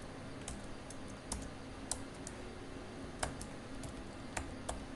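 Computer keyboard being typed on: a dozen or so separate key clicks at slow, irregular spacing.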